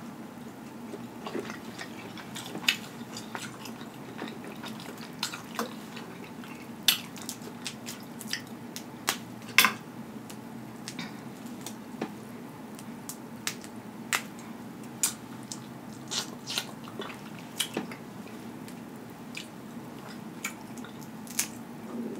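Close-miked eating of snow crab legs: shells cracking and being picked apart by hand, with wet chewing and mouth sounds. Sharp, irregular clicks and snaps come every second or so throughout.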